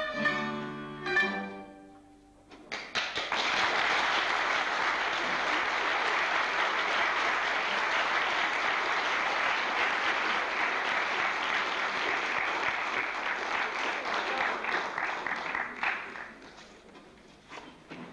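String music ending in the first two seconds, then audience applause that starts about three seconds in, holds steady, and dies away near the end.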